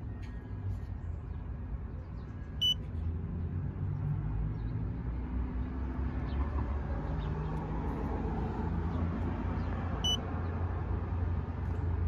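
Elitech DMG-4B digital refrigeration manifold giving two short, high beeps about seven seconds apart as its buttons are pressed to switch on its Bluetooth. A steady low rumble runs underneath.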